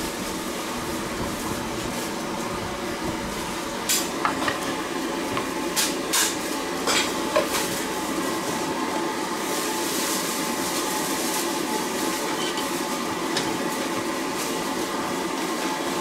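Kitchen noise: a steady hiss with several sharp clinks and knocks of utensils about four to seven and a half seconds in.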